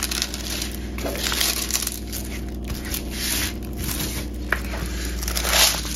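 Stiff diamond-painting canvas crinkling and rustling in irregular bursts as hands press and smooth it flat. Under it runs the steady hum of a washing machine on its spin cycle.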